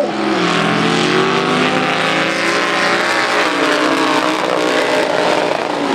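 Engines of two mud-racing trucks running hard at full throttle side by side down the track, a loud steady drone of several engine pitches at once that shift slowly as they pull away.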